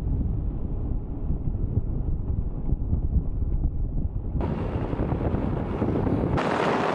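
Wind buffeting the microphone of a camera riding on a moving vehicle, over a low rumble of road and engine noise. About four and a half seconds in the sound turns abruptly hissier, and near the end the low rumble drops away.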